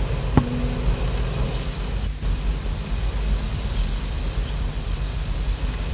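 Steady hiss and low hum of an old 1981 home voice recording during a gap in the talk, with a single sharp click about half a second in.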